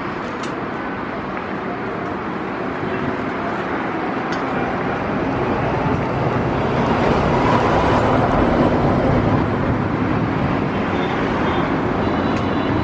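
Highway traffic on a mountain expressway: the engines and tyres of trucks, buses and cars make a steady rush that grows louder over the first half and then holds.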